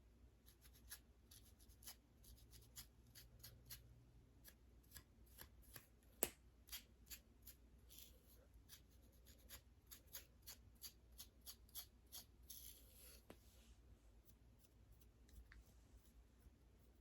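Fingernails scratching a flaky, dandruff-covered scalp: a run of quick, crisp scratch strokes, several a second, with one sharper click about six seconds in. The strokes thin out near the end.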